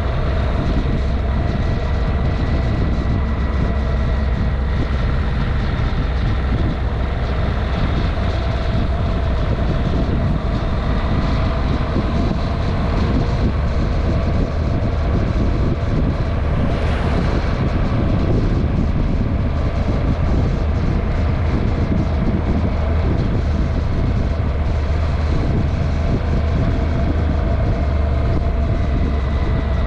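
A vehicle driving at a steady speed: continuous engine and road noise with wind on the microphone, and a brief swell about halfway through.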